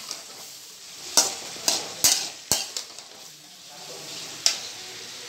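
Chopped onions frying in oil in an aluminium kadai, sizzling steadily while a steel spatula stirs them, with several sharp clicks and scrapes as the spatula knocks against the pan.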